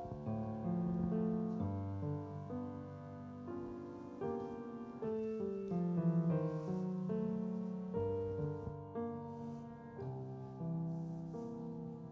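Grand piano playing a slow piece of held chords and melody notes.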